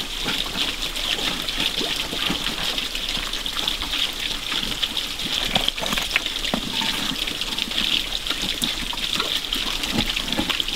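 Shallow creek water trickling and rushing steadily, with a few scattered knocks as concrete blocks are set in place.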